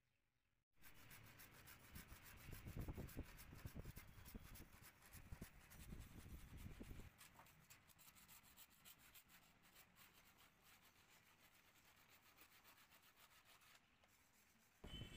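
Handsaw cutting across a wooden door rail, with repeated back-and-forth strokes starting about a second in. The strokes are stronger at first and fainter after about seven seconds.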